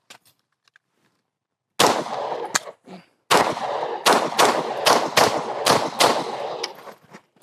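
Hi-Point pistol being fired in a timed practice stage: a first pair of shots, a short pause, then a rapid string of shots about two to three a second, each with a sharp report and a ringing echo.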